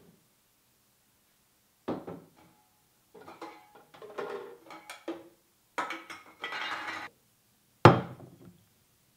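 Glass bottles and a drinking glass knocking and clinking against each other and a wooden counter as a drink is made, in several clusters, ending with a loud sharp clunk of something set down about eight seconds in.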